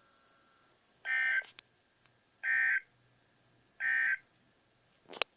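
NOAA Weather Radio broadcasting three short bursts of EAS/SAME digital data tones, about a second and a half apart: the end-of-message signal that closes the required weekly test. A sharp click near the end.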